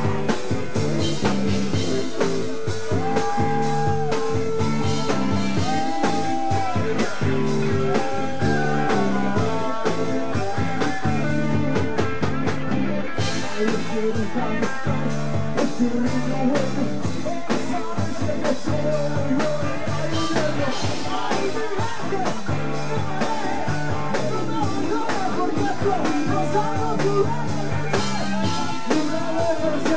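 Live rock band playing loud and steady: electric guitars, bass guitar, drum kit and keyboard, with a man singing into the microphone.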